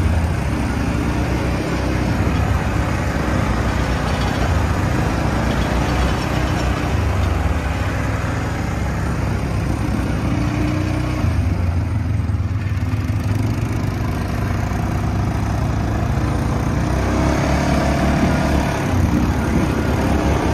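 Kawasaki Prairie ATV's single-cylinder four-stroke engine running steadily while riding, easing off briefly about halfway through.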